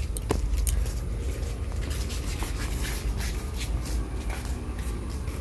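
Rubbing and rustling over a low rumble, with many short scattered clicks: handling noise on a handheld phone microphone carried while walking.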